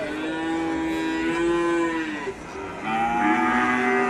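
Cattle mooing: two long calls. The first lasts about two seconds, and the second begins about three seconds in.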